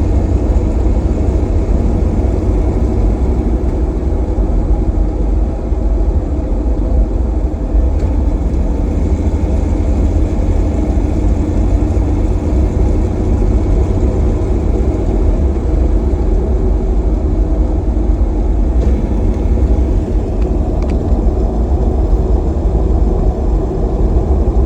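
Jeep TJ Wrangler drivetrain running with a loud, steady low rumble and drone that holds unchanged throughout; this is the unidentified noise the owner suspects comes from its AX15 five-speed manual transmission.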